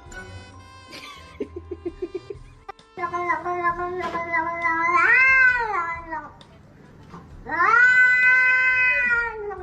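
A cat yowling: two long, drawn-out calls, the first bending up and back down in pitch near its end, the second about two seconds later. Before them comes a quick run of short sounds.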